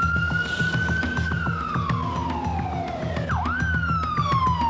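Fire truck siren wailing. The pitch rises, then slides down, dips sharply and jumps back up a little after three seconds, and falls again. A low pulsing rumble runs beneath it.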